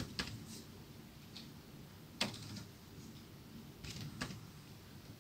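Faint, scattered keystrokes on a computer keyboard while a word is typed, about half a dozen separate clicks with the sharpest about two seconds in.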